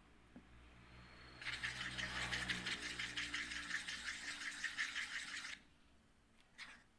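Slime mixture being stirred fast in a container with a stirrer: a dense, rapid rattling clicking that starts about a second and a half in and stops abruptly about four seconds later.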